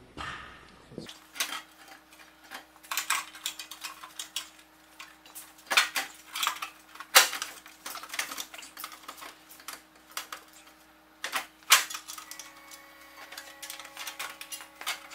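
Irregular metallic clicks, clinks and clanks of metal parts and tools being handled while working on a Jeep's tube fender. A faint steady hum sets in about a second in.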